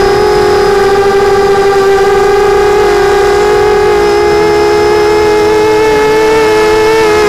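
Brushless motors of a Mini 250 quadcopter whining steadily in flight, recorded close up by the onboard camera. The pitch holds for the first few seconds, then the motors' tones drift apart and waver as their speeds change.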